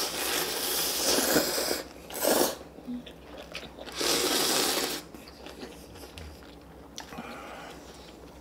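Instant ramen noodles slurped loudly in three hissing pulls: a long one over the first two seconds, a short one a little later, and another about four seconds in. Softer chewing follows.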